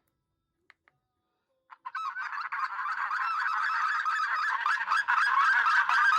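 Recorded white-fronted goose flock calls played through a HunterHelp electronic game caller's speaker, starting about two seconds in after a couple of faint clicks: a dense, continuous gabble of many overlapping honks.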